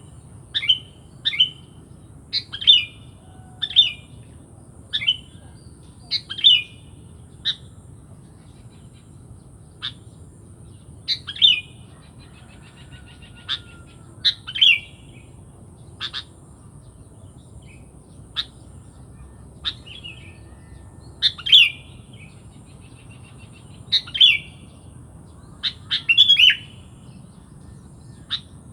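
Sooty-headed bulbul (kutilang) calling: short, sharp chirps repeated irregularly, about one a second, with a few longer pauses.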